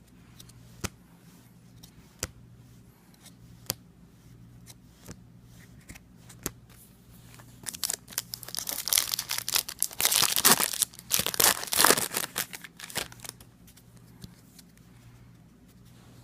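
Scattered light clicks and taps of cards being handled, then, about eight seconds in, a Garbage Pail Kids trading card pack wrapper is torn open and crinkled for about five seconds.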